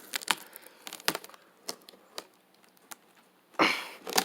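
Packaging being handled while a ceiling fan is unboxed: scattered sharp cracks and clicks, then a louder rustle for about half a second near the end.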